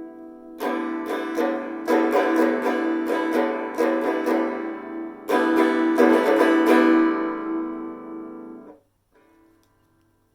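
Restored banjo being plucked and strummed in a few loose chords, the bright twangy strings ringing on between strokes. Near the end the strings are damped abruptly and the sound stops.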